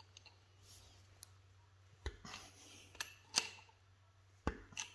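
Adjustable wrench clicking and clinking against a punch seated in a square-socket plug in a cast-iron engine block, as the plug is being turned out. A handful of separate sharp metal clicks, the loudest about two seconds in and near the end.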